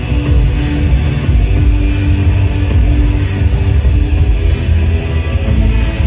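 Live industrial rock band playing loudly: distorted electric guitar and drums over a heavy, booming bass, with keyboards. Heard from within the crowd at a concert.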